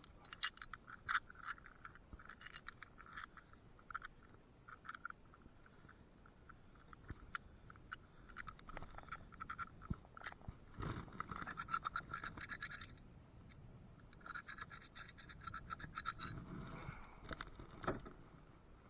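Clusters of scratching, scraping and clicking as a kayak anchor is hauled in, muffled by a camera case covering the microphone.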